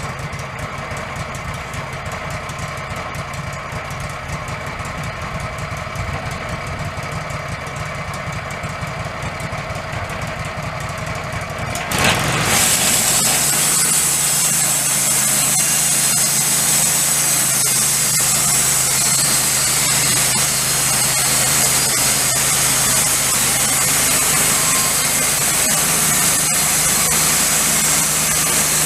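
Wood-Mizer LT15 band sawmill running, its engine a steady low rumble; about twelve seconds in the level jumps as the band blade engages and saws through a red oak log, a loud steady hiss over the engine's steady hum.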